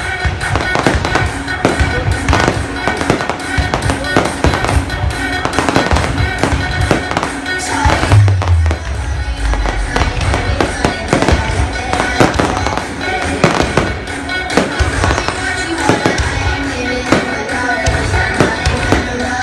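Aerial fireworks going off in a rapid, continuous stream of bangs and crackles, with a deeper boom about eight seconds in. Music plays underneath.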